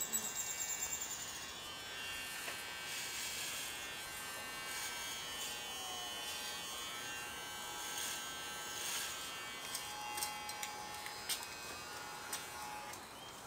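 Corded electric hair clippers buzzing steadily as they shave a man's head down close, with a few light clicks near the end.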